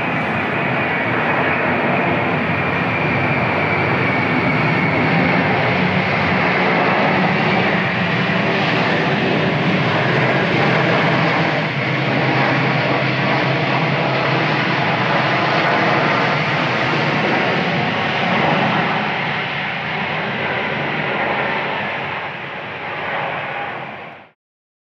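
Jet engines of a Boeing 767-300 airliner on landing, a loud steady rush with a high whine that falls slowly in pitch over the first several seconds. The noise eases off late and cuts off suddenly near the end.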